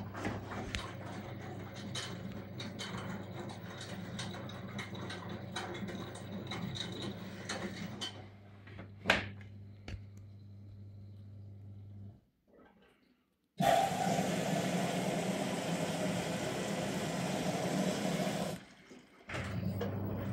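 LG F1409TDS6 front-loading washing machine running a cotton programme: a steady hum with clicks and rattles, a sharp click about nine seconds in, and the hum stopping about twelve seconds in. After a brief pause, water rushes into the machine for about five seconds.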